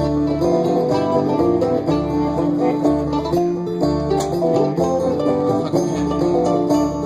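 Live band playing an instrumental passage on plucked string instruments, over a bass line that changes note about once a second.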